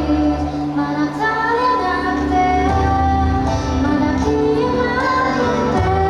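A woman singing a pop song live over instrumental music with a steady bass line.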